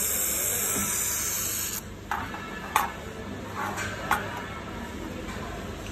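Laser welding machine hissing steadily, cutting off abruptly a little under two seconds in, then a few short sharp crackles, like brief tack welds, over a steady low machine hum.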